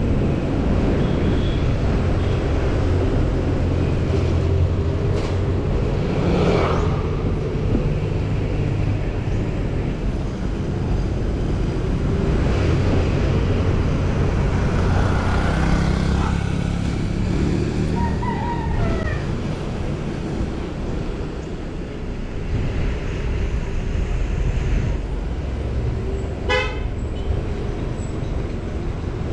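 Busy road traffic heard from a moving electric scooter, a steady low rumble with wind on the microphone. Vehicle horns toot several times, with short honks about halfway through and a quick string of short toots near the end.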